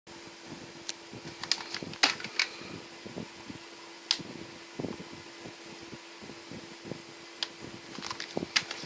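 Scattered sharp clicks and light knocks, as of things being handled, over a faint steady hum.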